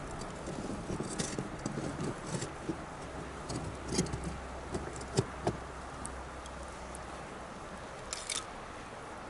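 Wood bonfire crackling, with scattered sharp pops and snaps over a steady hiss of burning. A low steady rumble sits underneath through the middle.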